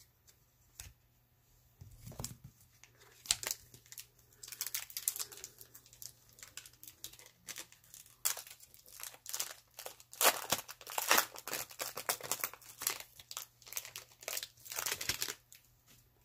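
Trading card pack wrapper crinkling and tearing as a new pack is opened, a dense run of irregular crackles that starts about two seconds in and stops shortly before the end.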